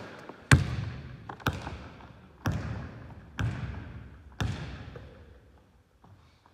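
Basketball dribbled on a hardwood gym floor: five slow bounces about a second apart, each echoing through the empty gymnasium. The bouncing stops about five seconds in.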